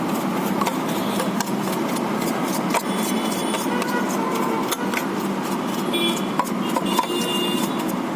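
Scattered clicks and taps from handling the plastic parts of a laser printer, over a steady background of road traffic noise.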